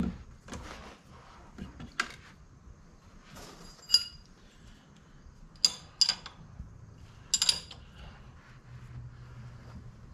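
A steel wrench clinking against the front suspension's bolts and steering knuckle: about half a dozen sharp metallic clinks at irregular intervals, a couple of them ringing briefly.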